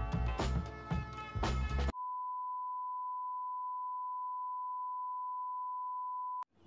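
Background music with a steady beat, cut off about two seconds in by a continuous single-pitch test-tone beep, the kind laid under a 'technical difficulties, please stand by' test card. The tone holds steady for about four seconds and stops abruptly just before the end.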